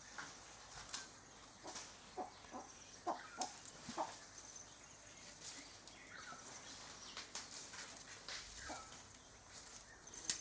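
Birds calling: short clucks and chirps, some falling in pitch.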